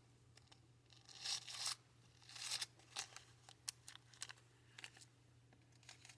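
Small plastic bead bags being handled: two short, faint rustles, then scattered light clicks and taps.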